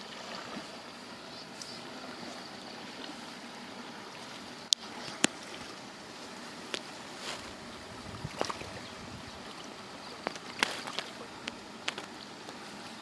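Steady trickling water hiss with scattered sharp clicks and knocks, the two loudest close together about five seconds in.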